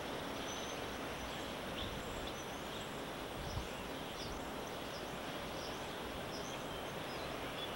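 Steady outdoor background hiss with faint, short high bird chirps now and then.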